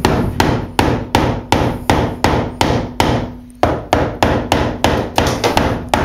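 A claw hammer driving a tack through a wooden strip into a timber panel, in quick even blows about three a second. The blows stop briefly a little past halfway, then carry on.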